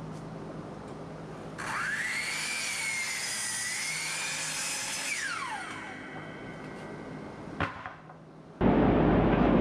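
Sliding compound miter saw cutting a board: the motor whines up, the blade runs through the cut, then the whine falls away as the blade spins down. A single click follows, and a steady rush of noise starts suddenly near the end.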